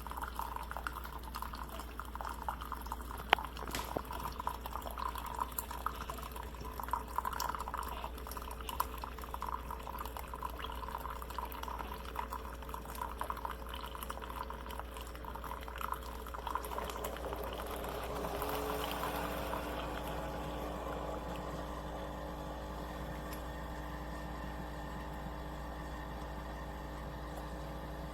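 Water poured into a small coffee maker's water reservoir, with scattered clicks and knocks. The pouring ends about two-thirds of the way through, leaving a steady hum.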